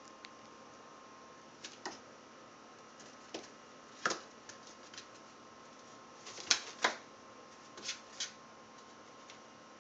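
Irregular taps, knocks and scuffs of an 8-week-old kitten with cerebellar hypoplasia bumping and scrabbling about in cardboard boxes, its unsteady movements knocking against the cardboard. About ten separate taps come at uneven intervals, the loudest pair about six and a half to seven seconds in.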